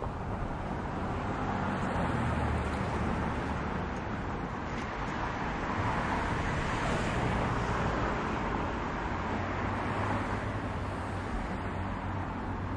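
Diesel locomotives of a freight train running steadily: a low engine drone under a broad even noise.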